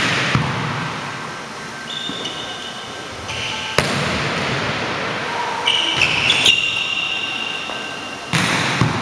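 A volleyball being struck several times, sharp hand-and-forearm slaps on the ball that echo in a large gym, with short high squeaks in between.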